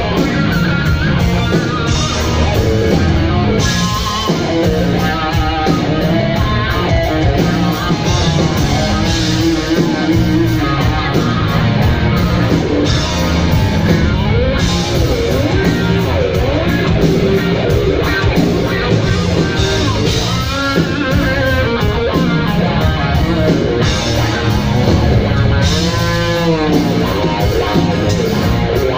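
Rock band playing live, heard through a direct soundboard mix: electric guitar leading over bass and drums.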